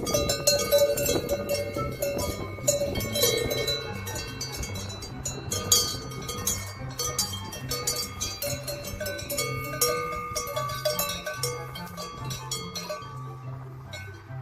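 Metal cowbells on grazing cattle clanking irregularly, each strike ringing briefly, over a low note that shifts in pitch in steps.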